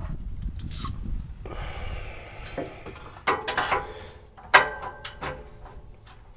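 Metal hand tools being handled: a few sharp metallic clinks that ring briefly, the loudest about three and four and a half seconds in, over rustling and handling noise.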